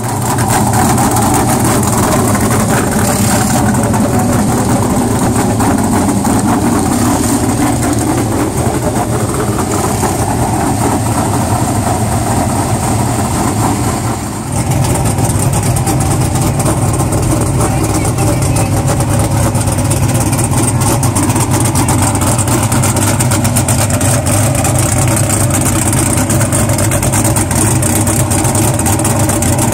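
Dirt modified race car's V8 engine idling loudly and steadily. The sound dips briefly about fourteen seconds in, then carries on just as steady.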